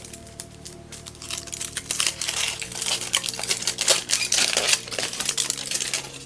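Plastic crinkling with rapid clicks, starting about a second in and dying away near the end, as small parts are handled; background music with held chords underneath.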